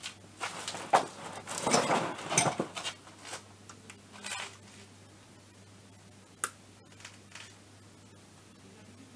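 Rustling and scraping handling noises in a cluster of bursts over the first three seconds, with a couple more around four seconds, then a single sharp click about six and a half seconds in.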